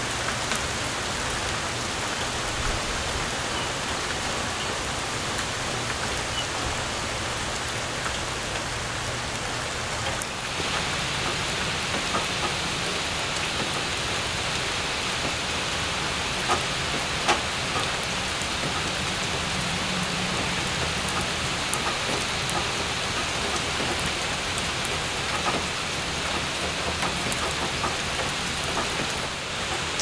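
Steady rainfall hissing. About ten seconds in it turns brighter: rain pattering on wet, puddled pavement, with a couple of louder drop splashes.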